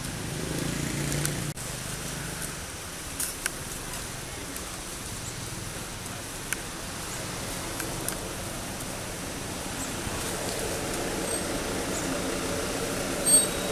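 Steady outdoor background rumble and hiss, with a few faint sharp clicks scattered through it and a louder tick near the end.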